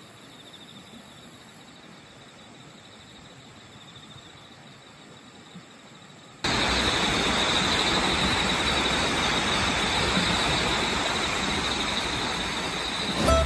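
Outdoor ambience with insects trilling steadily; a little past halfway it cuts abruptly to a much louder, even hiss of outdoor noise, with the insect trill still running through it.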